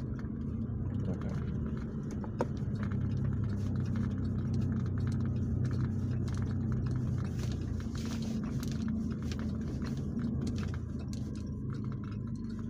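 A light truck's engine running steadily at low speed, heard from inside the cab as it crawls over icy snow, with scattered faint crackles.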